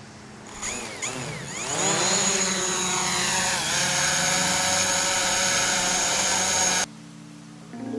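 DJI Mavic Pro quadcopter's propellers spinning up with a whine that rises and then falls back. It settles into a steady high-pitched multi-tone buzz and cuts off abruptly about seven seconds in.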